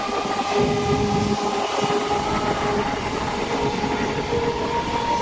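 Train running along the track, its wheels rumbling steadily over the rails, with thin steady whining tones above the rumble.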